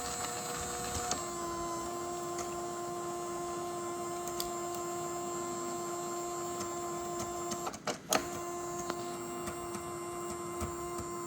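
Creality CFS filament feeder motor whining steadily as it tries to feed filament, with a slight change in pitch about a second in and a short break with a couple of clicks near eight seconds in. The motor runs but the filament is not being grabbed.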